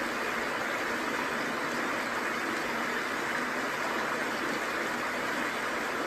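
Steady rushing of a small waterfall and mountain stream.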